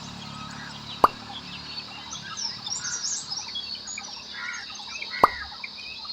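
Many birds chirping at once, with two sharp clicks, one about a second in and one about five seconds in.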